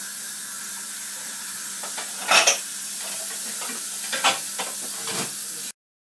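Steady hiss with a faint low hum, broken by a few short handling noises: a loud pair about two seconds in and smaller ones around four and five seconds. The sound cuts off abruptly near the end.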